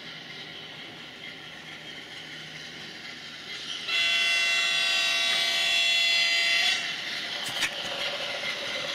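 Sound-equipped model of an Indian Railways WDG-4P diesel locomotive sounding its multi-tone horn once for about three seconds. Its recorded diesel running sound continues steadily underneath, with a short click near the end.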